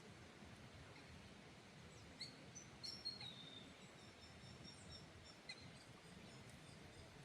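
Near silence outdoors, with a few faint bird chirps and thin whistled notes about two to three seconds in and another short chirp later.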